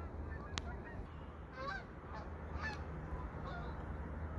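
A distant flock of birds calling, many short calls overlapping, over a steady low rumble. A single sharp click about half a second in.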